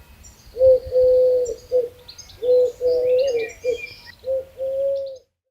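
Dove cooing: a run of low, repeated coo phrases, with faint high chirps of other birds behind. It cuts off just before the end.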